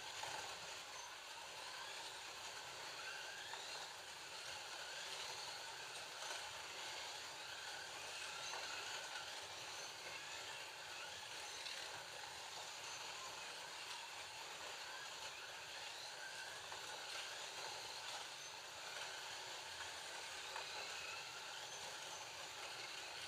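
Several Scalextric digital slot cars running laps around a plastic track: a steady whir of their small electric motors, with faint rises and falls in pitch as the cars speed up and slow down.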